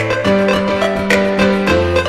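Background music: a keyboard melody over a bass line with a steady beat.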